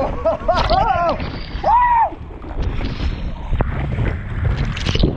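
Steady low rumble of wind buffeting the microphone, with high-pitched voices shouting or calling out twice in the first two seconds.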